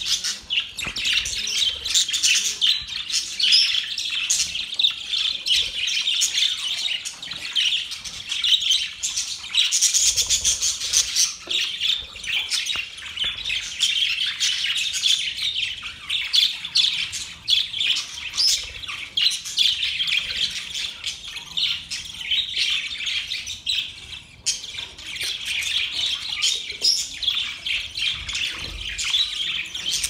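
A flock of budgerigars chattering at once: a dense, unbroken stream of short high chirps and warbles from many birds.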